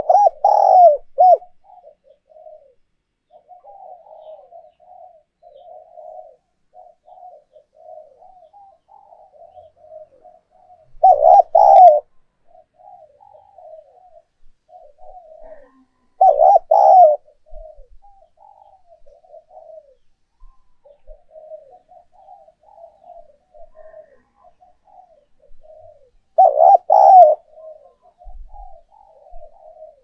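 Spotted dove cooing: four loud coo phrases, each about a second long, spaced several seconds apart, with soft, quieter coos running on between them.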